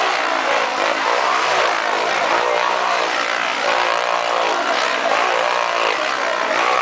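Two motorcycle engines revving hard as the bikes circle inside a steel-mesh globe of death, their pitches rising and falling in overlapping waves with each lap.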